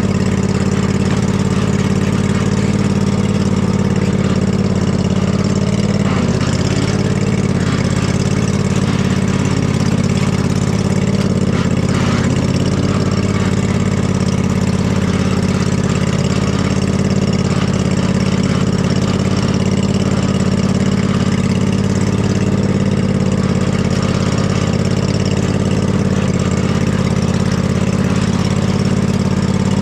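Husqvarna riding mower's engine running steadily, its pitch dipping briefly about six seconds in.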